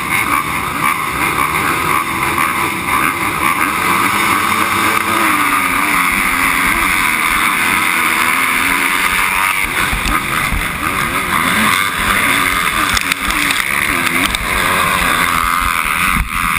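A pack of motocross dirt bikes revving at the starting gate, then running at full throttle off the start, with the rider's own bike loudest.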